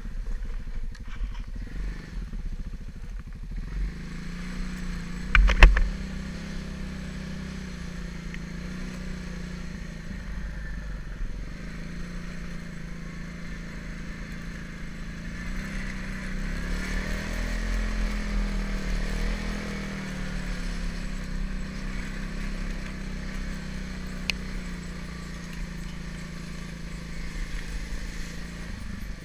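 TGB Blade 550SE quad's single-cylinder engine running steadily as it is ridden along, with the revs rising and easing off around the middle. A single loud knock comes about five and a half seconds in.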